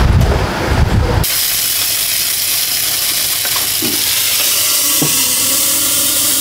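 Food sizzling in a hot pan: a steady frying hiss that starts abruptly about a second in, with a few faint knocks. A low rumble comes before it.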